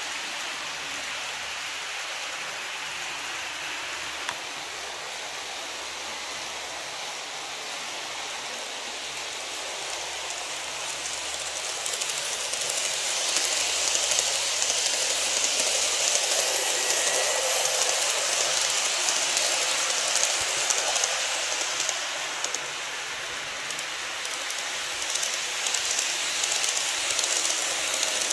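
N-gauge model trains, E351 series and E233 series, running on plastic track: a steady rushing rattle of wheels and motors. It grows louder about twelve seconds in as a train passes close, eases off, then rises again near the end as the next train comes by.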